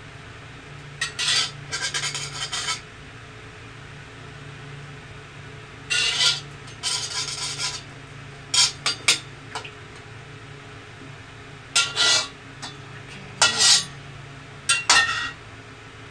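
Metal slotted spatula scraping and clinking against a wok in repeated short bursts as fried fish pieces are scooped out of the soup.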